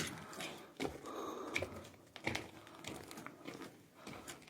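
Handling noise from work on electrical wiring: scattered small clicks, taps and crinkling.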